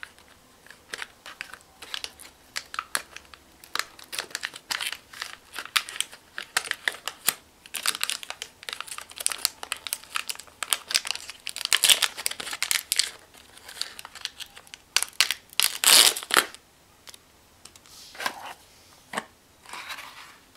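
Foil film pouch and cardboard box crinkling and tearing in the hands as an instant-film pack is unwrapped: a long run of irregular crackly rustles, busiest in the middle, with the loudest rustle about sixteen seconds in and a few scattered ones near the end.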